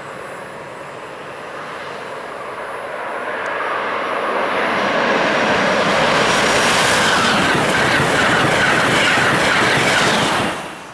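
Passenger train on an electrified high-speed main line approaching and rushing past at speed, its wheel-on-rail noise building steadily to a loud peak, then cutting off abruptly near the end.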